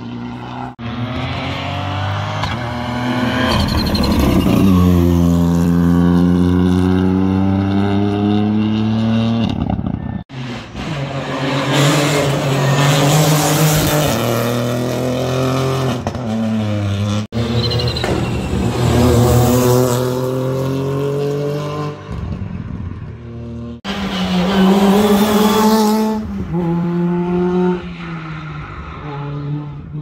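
Rally cars' engines revving hard at full throttle, the pitch climbing and dropping through gear changes. Several separate car passes are cut together one after another.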